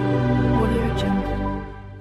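Outro music with held notes and a brief high chime about a second in, fading out near the end.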